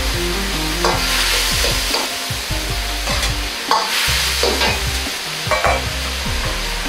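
A metal ladle stirring and scraping through simmering sauce in an iron wok, clacking against the wok about five times. The sauce sizzles over the steady roar of a gas wok burner.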